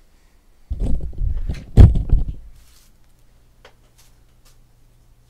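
Loud knocking and rustling close to the microphone as a person gets up from the desk, loudest at one heavy bump. A short hiss and a few light clicks follow, and a low steady hum sets in.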